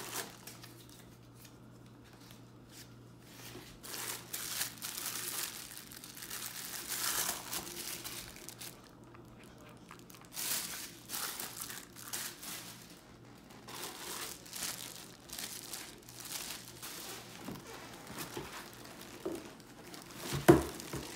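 Clear plastic wrap crinkling and tearing in irregular bursts as it is pulled off an enameled cast iron Dutch oven. A single loud knock comes near the end.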